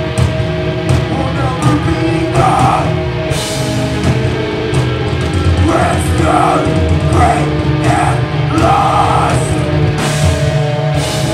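A heavy rock band playing live at full volume: electric guitar, bass and a drum kit with crashing cymbals, with a singer's short vocal phrases coming in several times.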